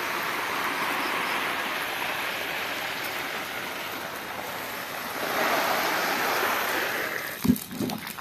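Steady rush of running water, swelling louder for about two seconds past the middle, followed by two or three dull knocks near the end.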